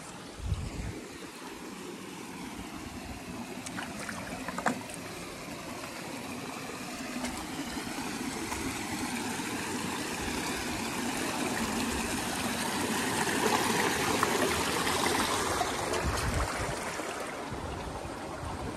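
Small rocky creek running over boulders: a steady rush of water that swells toward the middle and eases off near the end. Two short knocks sound, one about half a second in and another near five seconds.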